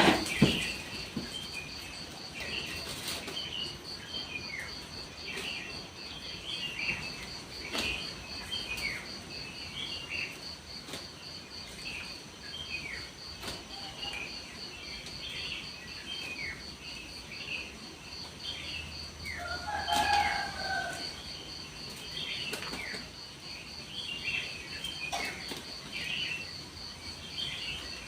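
Small birds chirping over and over with short falling chirps, over a steady high pulsing insect trill.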